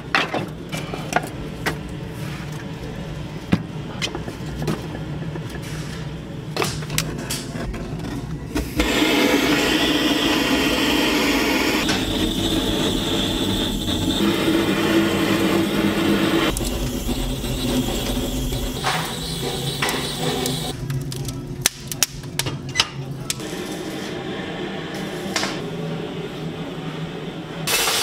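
Split firewood knocking and clattering as pieces are loaded into the firebox under a steel griddle. About nine seconds in, a steady rush of the blazing wood fire in the firebox takes over for some twelve seconds, and then the knocks and clatter return.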